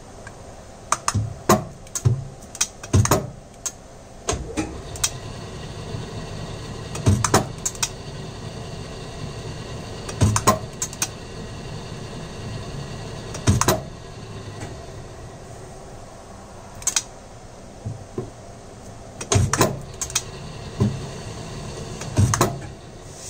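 Sharp metallic clicks and clunks of a small bench lathe's hand levers and tool turret being worked by hand, some single and some in quick clusters. A steady machine hum is stronger in the middle of the stretch.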